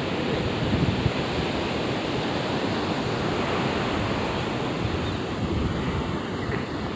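Surf breaking and washing up a sandy beach in a steady, continuous rush, with wind buffeting the microphone.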